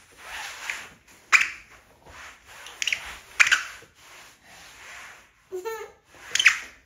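Several sharp clicks, with soft hissing between them, and a toddler's brief high-pitched vocal sound about five and a half seconds in.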